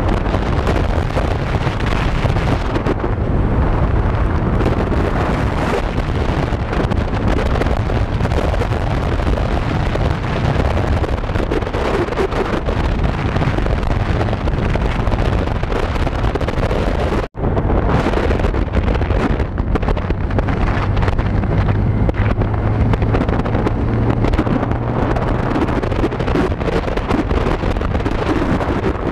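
Heavy wind rush buffeting the microphone of a camera riding on a moving motorcycle, with the motorcycle engine's low drone underneath. The sound cuts out for an instant about two-thirds of the way through.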